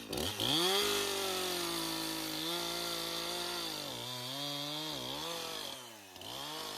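Two-stroke chainsaw cutting through a log at high revs, its pitch sagging and recovering several times as the chain loads up in the wood.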